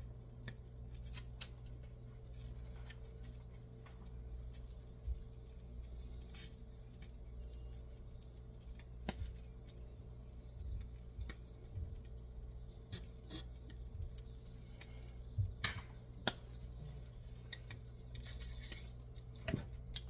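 Butter melting in a small nonstick skillet, crackling faintly, with scattered light clicks of a knife tapping and scraping the pan over a low steady hum. Near the end there is a brief scrape as the pan is shifted on the glass cooktop.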